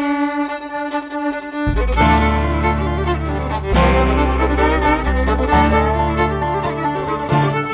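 A bluegrass fiddle opens a tune alone with a long held note. Less than two seconds in, the rest of the string band comes in under it with bass notes and rhythm, and the fiddle carries on with the melody.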